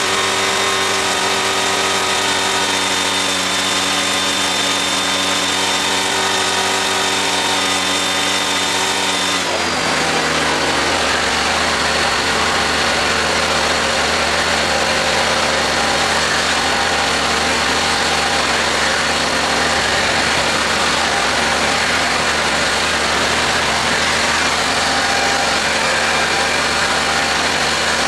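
A small engine or motor running steadily. About nine seconds in, its pitch drops and the sound turns rougher and fuller, then it runs on steadily.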